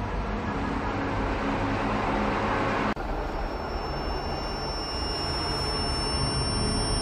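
Steady low mechanical rumble of a large vehicle repair workshop. It cuts out for an instant about three seconds in, after which a few thin, high steady whining tones run alongside it.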